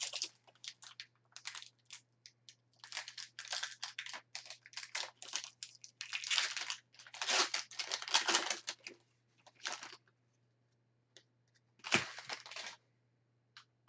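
Foil trading-card pack wrappers being torn open and crinkled in the hands, in irregular rustling bursts, with one sharp tap about twelve seconds in.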